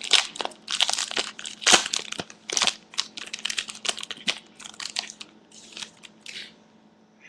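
Trading card pack wrapper crinkling and crackling as it is torn open and handled, in a quick irregular run of crackles that dies away near the end.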